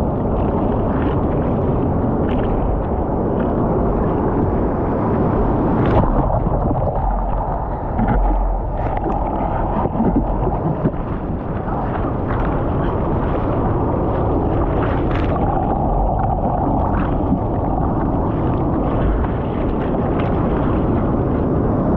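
Breaking surf whitewater rushing and splashing over a surfboard right at the microphone, with wind buffeting it and a few louder splashes.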